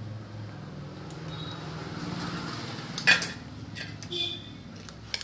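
Steel spoon clinking against stainless steel bowls while ladling ghugni curry. There is a sharp clink about three seconds in, a ringing clink about a second later, and a short tap near the end, over a steady low hum.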